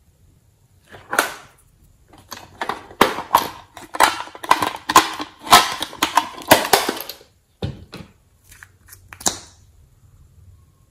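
A small hard plastic case clicking and knocking as hands handle it and tap its contents out into a glass dish: quick irregular clicks for several seconds, then a single thump and a short scrape near the end.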